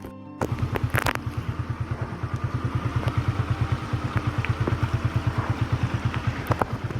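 A small engine running steadily at low speed with an even beat of about eight thuds a second, over a steady hiss. It starts abruptly about half a second in.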